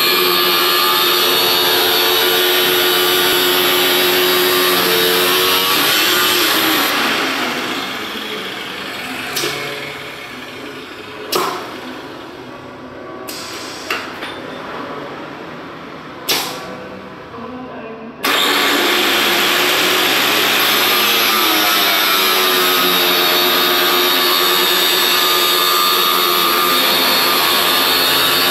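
Abrasive cut-off wheel on an automatic rod-cutting machine grinding through steel rod, a loud steady screech. About six seconds in the cut ends and the sound falls away to the quieter run of the motor, with four sharp clacks spaced a couple of seconds apart. A second cut starts suddenly about eighteen seconds in.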